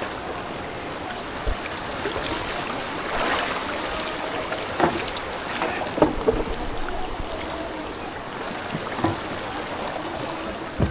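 Rushing floodwater of a swollen river, a steady noise, with a few short knocks scattered through it.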